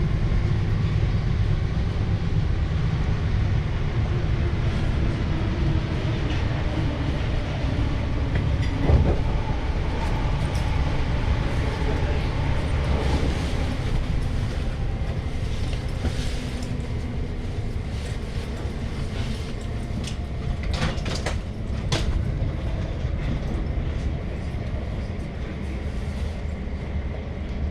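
Passenger train running along the track: a steady low rumble of wheels on rails, with a sharp knock about nine seconds in and a few clicks over the rails about twenty-one to twenty-two seconds in.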